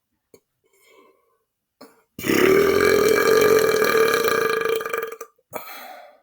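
A man's long, loud belch lasting about three seconds, held on a steady pitch and starting about two seconds in. A brief, quieter sound follows near the end.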